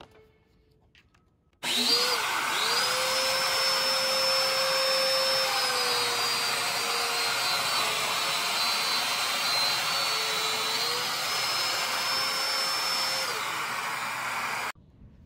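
Festool Domino joiner motor starting with a rising whine, together with the rush of its dust extraction. The whine drops in pitch for a few seconds in the middle, rises again, then cuts off suddenly.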